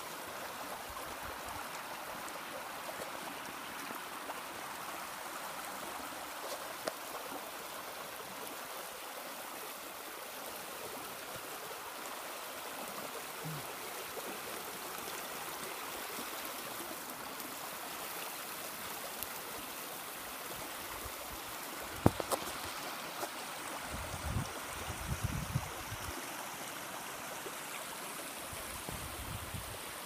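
A small rocky stream rushing and burbling steadily. A sharp click comes about two-thirds of the way in, followed by a few low thumps near the end.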